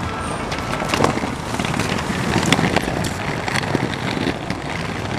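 Skateboard wheels rolling over brick paving in a steady rough rumble, with several sharp clacks, and wind on the microphone.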